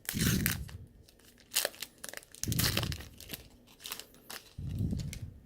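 A trading-card pack's wrapper being torn open and crinkled by hand, in several short bursts of tearing and rustling.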